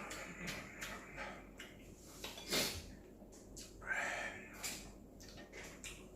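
A person slurping and chewing spicy ramyeon noodles, with small clicks of utensils and wet mouth sounds; the louder slurps come about two and a half and four seconds in.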